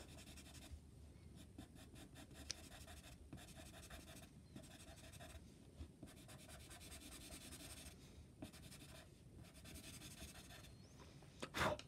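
Pastel pencil scratching faintly on paper while a cat's fur is shaded, in runs of quick back-and-forth strokes with short pauses between them. A brief, louder knock comes near the end.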